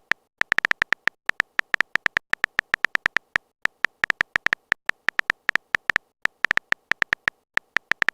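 A rapid, irregular run of short sharp clicks, several a second: a typing sound effect of the kind used for messages being typed out in a chat story.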